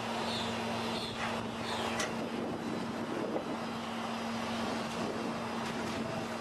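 Steady low mechanical hum over constant background noise, with a few faint, short high chirps.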